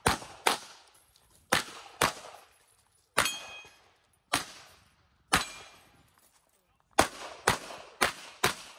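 Gunshots from a 9mm Glock 26L pistol in a USPSA stage, fired mostly in quick pairs about half a second apart with a few single shots between. Eleven shots in all, with a short ringing tone after one of them.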